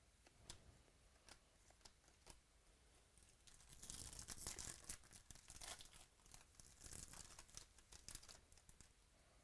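A few soft clicks of trading cards being handled, then from about three and a half seconds in the foil wrapper of a baseball card pack is torn open and crinkled, in two spells of rustling.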